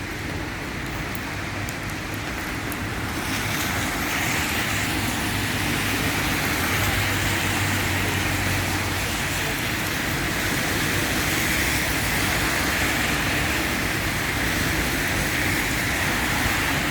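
Steady road traffic noise, a continuous hiss of vehicles that grows a little louder about three seconds in.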